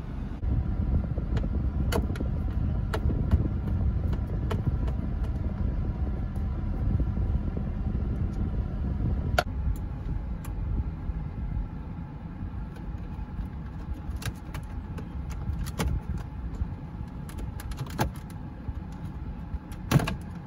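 Plastic dashboard trim clicking and snapping as it is pried and pulled by hand, in scattered single clicks, with a sharper, louder snap near the end as the centre aircon vent panel is pulled loose. A steady low hum runs underneath.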